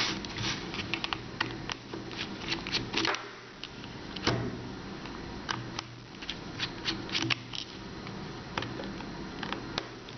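Small Torx screwdriver working the screws out of a plastic laptop battery pack casing: an irregular run of light clicks and ticks, with the sharpest click about four seconds in.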